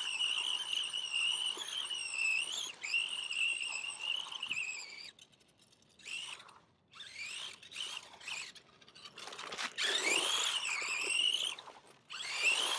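Tamiya sport-tuned 21-turn electric motor and gearbox of an RC rally car whining under throttle as it spins donuts, the high whine rising and falling in pitch. It cuts out about five seconds in, comes back in several short blips, then winds up again in one long rise and stops briefly near the end.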